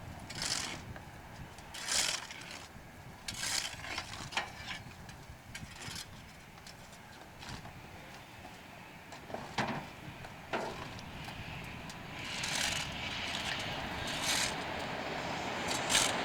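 Irregular clicks and rustles over a faint outdoor hiss, with a rushing noise that swells a little after twelve seconds in and again at the very end.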